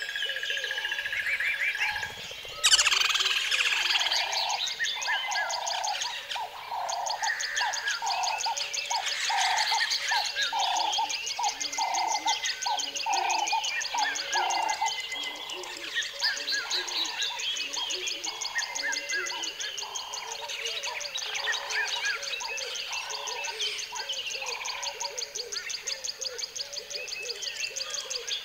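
Dense chorus of birdsong: many birds chirping and trilling high, with a repeated lower call about once a second through the middle.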